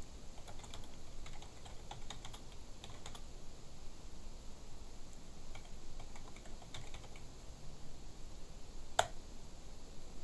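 Typing on a computer keyboard: two short runs of keystrokes, then a single sharper, louder click about nine seconds in.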